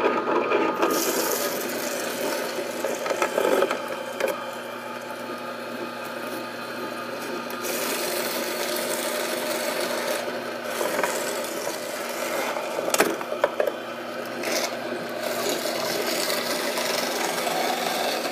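Slow-speed juicer running while celery stalks are pushed into the chute and crushed, a steady grinding and crunching with a few sharp cracks as the stalks snap.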